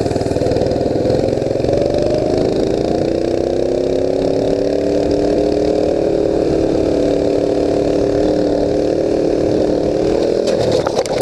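Mini bike's small engine running under throttle, its note rising as the bike picks up speed and then holding at high speed. Near the end the engine note breaks off into a quick series of knocks as the bike crashes.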